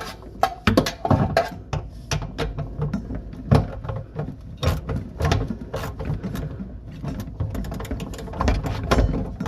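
Irregular clicks, knocks and clunks of hand tools and metal fittings being handled under a sink.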